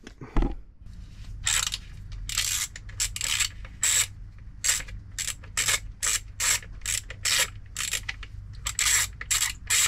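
Socket ratchet clicking in short back-and-forth strokes, a quick burst of clicks about every half second, as hex-head bolts are undone on the back cover of a marine diesel's timing belt case. A thump comes just after the start, and a low steady hum runs underneath.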